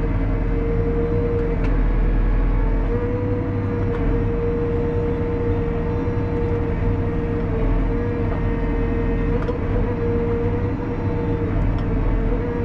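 Valtra 154e tractor's diesel engine running steadily under load, heard from inside the cab, with a steady high whine over it as the Kesla crane's hydraulics are worked from the joysticks.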